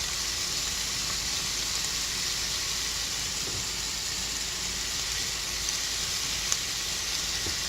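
Ground sausage sizzling as it browns in hot olive oil in the pot of a Ninja Cooking System set to its highest stovetop heat, a steady even hiss.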